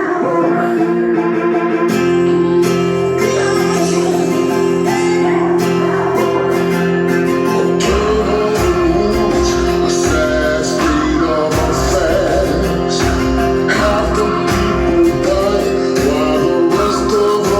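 Guitar music with some singing, played loud through hi-fi loudspeakers driven by a small amplifier; a heavy bass line comes in about eight seconds in.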